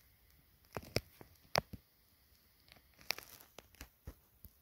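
Faint, sparse sharp taps and clicks at irregular intervals, about a dozen in all, the loudest about one and one and a half seconds in.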